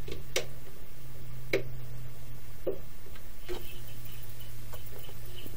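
12 V off-grid power inverter running just after start-up, with a steady low hum and four sharp clicks a little over a second apart, then fainter ticks. The owner hears this odd clicking and cannot tell whether it comes from the inverter or from the EMI noise filters just wired into its AC output.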